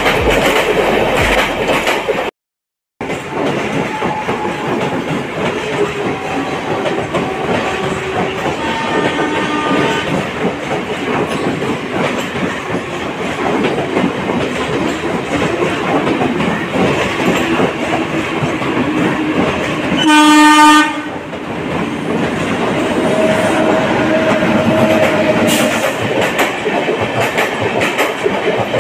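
An LHB express train hauled by a WAP-7 electric locomotive running through at speed, its wheels clattering over the rail joints. The locomotive horn sounds loudly for about a second about two-thirds of the way through, with fainter horn tones earlier. The sound breaks off briefly a couple of seconds in.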